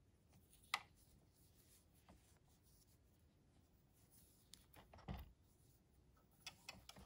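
Near silence with faint rustling of hands knotting yarn strands on a plastic circular knitting machine, with a sharp click about a second in and a soft thump around five seconds in.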